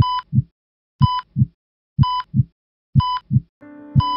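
Heart-monitor sound effect: a short electronic beep once a second, each with a heartbeat's low double thump, about 60 beats a minute, five in all. A sustained music chord comes in near the end.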